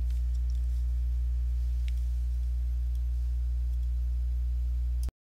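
Steady low electrical hum with a stack of overtones, the background hum of the recording setup. It cuts off abruptly near the end, where the recording stops.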